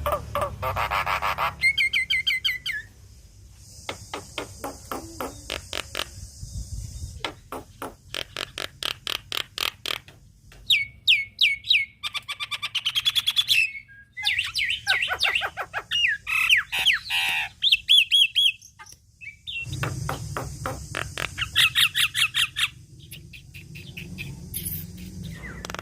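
Javan myna singing in full voice: runs of rapid clicking, rattling chatter, with a stretch of quick whistled, sliding notes in the middle.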